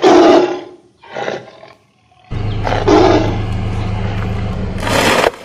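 Tiger roaring: a loud roar at the start and a shorter one about a second in. A little over two seconds in, a steady low engine drone starts as a truck rolls in, with another roar on top of it about three seconds in and a loud harsh burst near the end.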